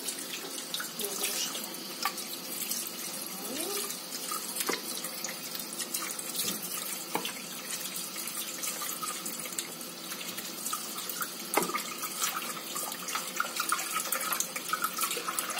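Kitchen tap running into a sink while raw chicken thighs are rinsed under the stream, with a few light knocks now and then.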